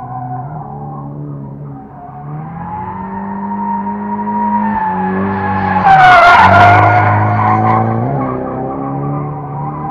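A car drifting past at speed: the engine held high in the revs, its pitch stepping up and down, with tyres squealing and skidding loudest as it slides by about six seconds in, the engine note dropping as it passes and fading after.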